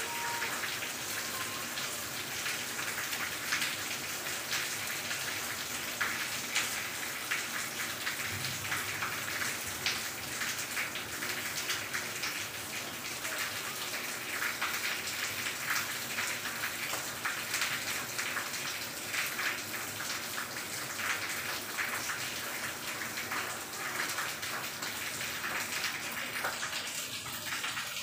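Steady rain falling, with many separate drops ticking on surfaces.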